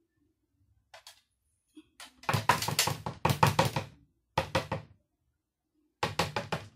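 Plastic julienne blade insert from a mandoline slicer knocked rapidly against a glass container to shake off clinging vegetable shreds, in three bursts of sharp taps: a long run about two seconds in, a short one, then another near the end.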